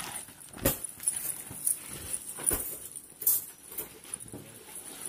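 Irregular knocks and taps, roughly one a second, as parts of a bed frame are fitted together.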